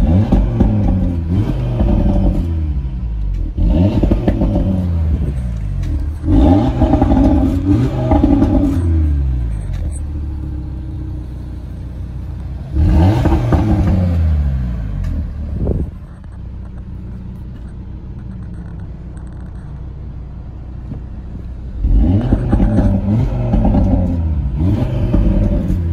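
2018 Audi TT RS 2.5-litre turbocharged five-cylinder engine revving in a series of rises and falls in pitch. It settles to a quieter, steady idle about two-thirds through, then revs again near the end.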